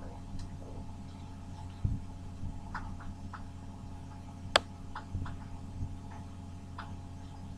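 Scattered light clicks and taps of small objects being handled, one sharp click about four and a half seconds in standing out, over a steady low hum.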